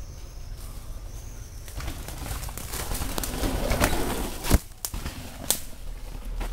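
Downhill mountain bike riding a dirt trail: rushing tyre and wind noise that builds, then two sharp knocks about a second apart past the middle.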